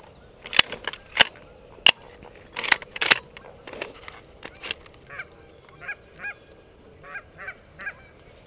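Dry grass crackling and brushing against the camera for the first few seconds, then a series of short Canada goose honks, two or three a second, over the second half.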